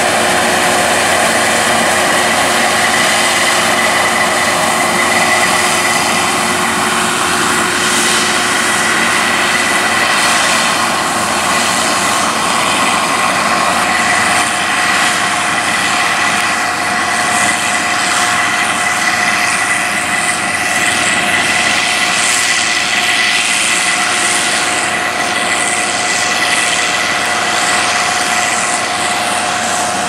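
Massey Ferguson 32 combine harvester working in winter barley: engine and threshing machinery running as a steady drone with a high whine held throughout, easing slightly near the end.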